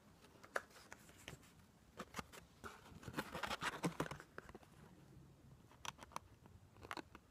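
Faint handling noises: scattered small clicks and taps, with a short stretch of denser rustling and clicking about three to four seconds in.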